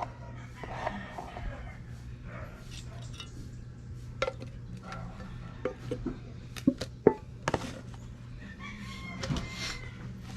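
A handful of sharp knocks and clinks, as of hard objects being handled, over a steady low hum and faint voices.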